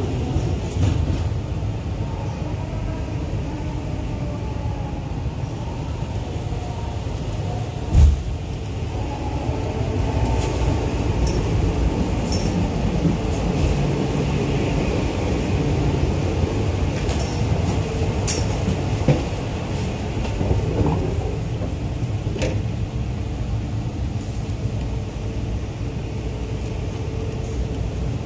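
Steady low rumble and hum inside an E4 series 'Max' double-decker Shinkansen car, with one sharp thump about eight seconds in and a few lighter knocks later.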